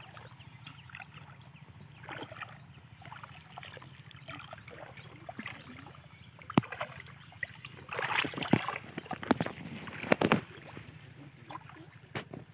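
Shallow water splashing and sloshing as a person wades through it, with a few sharp knocks and a louder run of splashes near the end.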